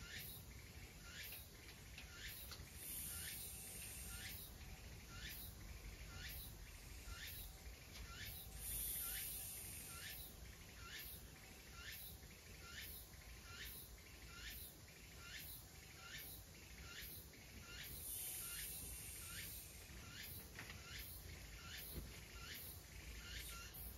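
A small bird calling steadily and faintly, a short falling note repeated about every half second, with a high insect trill pulsing above it.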